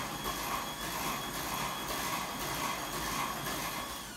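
Small electric kitchen appliance motor running steadily at the counter, with a faint regular pulsing about two or three times a second.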